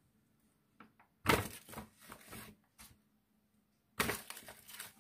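Flour bag crinkling as flour is shaken out of it into a mixing bowl, in two short bursts of rustling, the first about a second in and the second near the end.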